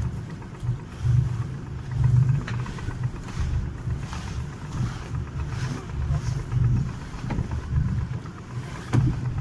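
Wind buffeting the microphone in an uneven low rumble that swells and drops in gusts, with a few faint flaps of the red canvas mainsail luffing loosely as it is hoisted.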